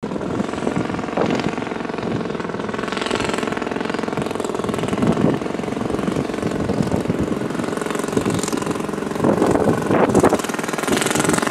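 Jackhammer hammering continuously in a fast, rapid rattle, with a few louder surges.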